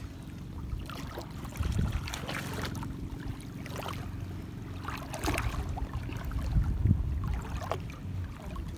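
Shallow seawater lapping and splashing in short irregular bursts, over a low steady rumble.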